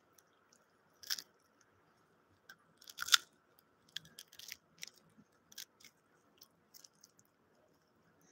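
Irregular clicks and crackles right at the phone's microphone, loudest about a second in and again about three seconds in. This is a toddler handling the phone.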